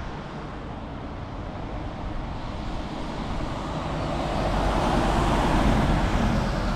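Heavy tri-axle lorry with a loading crane driving past on a wet road: engine rumble and tyre noise growing louder as it approaches, peaking near the end.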